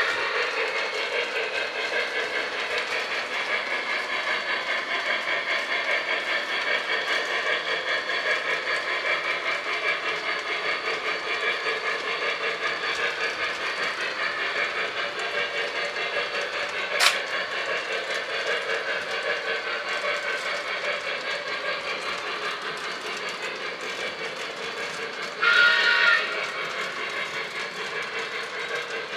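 Model 2-8-2 steam locomotive running with a train of freight cars, its steam sound unit giving a steady rhythmic running sound. There is a single sharp click about halfway and a short whistle blast near the end.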